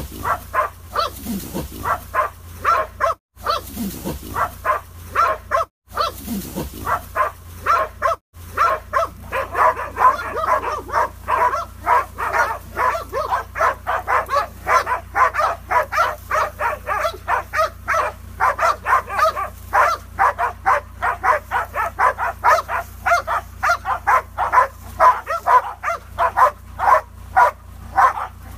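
Hunting dogs barking rapidly and without pause, about three to four barks a second, with low falling moans among the barks in the first several seconds. The sound cuts out briefly three times early on.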